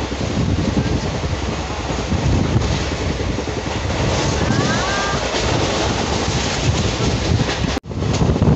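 Rumble of a moving passenger train heard from inside the coach, with wind buffeting the microphone from the open window; the sound drops out for an instant near the end.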